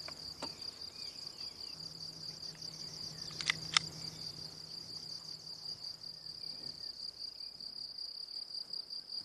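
Crickets chirping steadily in a fast, even pulse, with two sharp clicks close together about three and a half seconds in.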